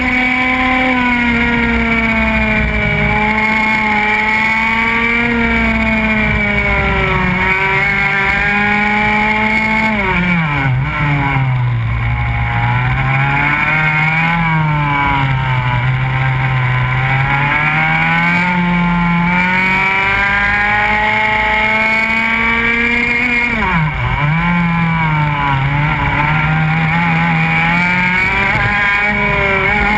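Go-kart engine running hard on a circuit, its pitch climbing and wavering with the throttle. The revs drop sharply about ten seconds in and again about twenty-four seconds in, then climb back as the kart accelerates out of the bends.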